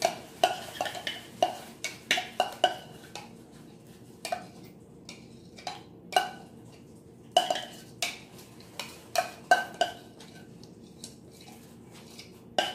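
Metal spoon stirring and scraping in a small bowl, clinking against its side in irregular runs of sharp, briefly ringing clinks. The clinks come thickest at the start and again from about halfway through, with scattered single clinks between.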